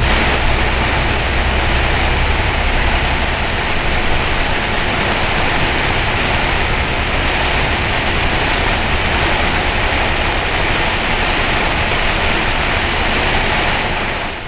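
Torrential black-rainstorm rain pelting a moving vehicle, a loud steady wash of noise over a low engine rumble. It fades out at the very end.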